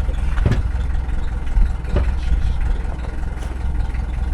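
Tractor engine running steadily, with a couple of short knocks, one about half a second in and one about two seconds in.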